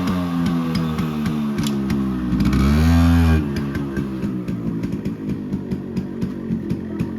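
Yamaha RX100's two-stroke single-cylinder engine with its revs falling, then a quick throttle blip that rises and falls about three seconds in. It then drops to an uneven idle with irregular pops.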